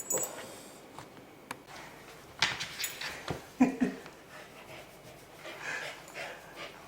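A dog moving about indoors, with a few sharp clicks, a rustling burst, and one short low sound from the dog about three and a half seconds in.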